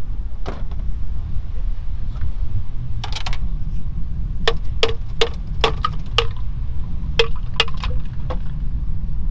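Ice cubes popped from a plastic ice cube tray dropping one at a time into a clear jug, a quick run of about a dozen sharp clinks from a few seconds in, over a steady low rumble.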